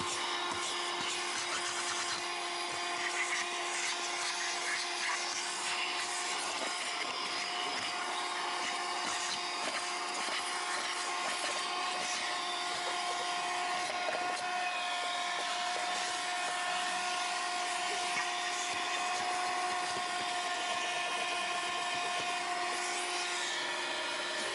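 Black & Decker PAD1200 Flexi car vacuum cleaner running steadily: a constant motor whine over the rush of air being sucked through. The whine shifts slightly just before the end.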